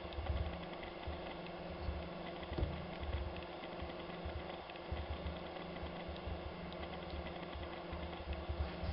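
Irregular mechanical clicks and low knocks over a steady hum.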